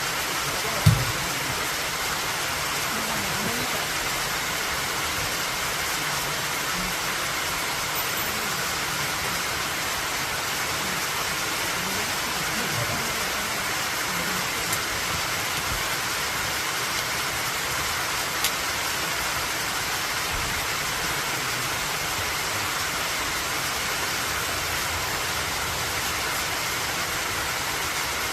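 Steady rushing of a waterfall, water falling and splashing without a break. A brief knock sounds about a second in.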